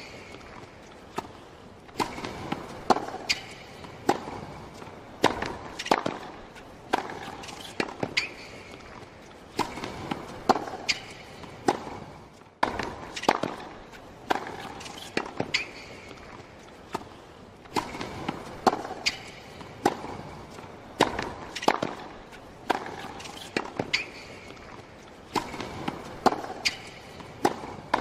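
Repeated sharp knocks, one or two a second at uneven intervals, some with a brief ringing tone after the hit.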